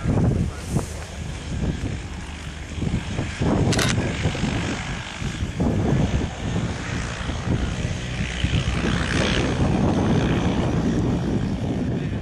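Wind gusting across the microphone in irregular low rumbles, with a brief click a little under four seconds in.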